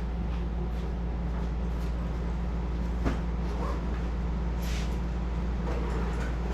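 A steady low mechanical hum, with a couple of light clicks and rustles from bags and straps being handled about three and four and a half seconds in.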